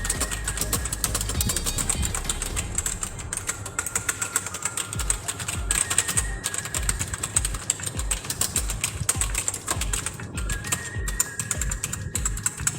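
Rapid typing on an Evofox Fireblade membrane gaming keyboard, a dense run of key clicks. The membrane keys give a clicky sound close to that of a mechanical keyboard.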